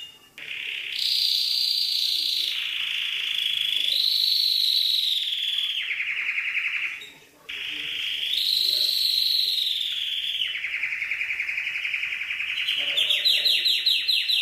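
Domestic canary singing: long held whistled notes that rise and fall in pitch, broken by stretches of fast rolling trills. The song cuts out briefly twice.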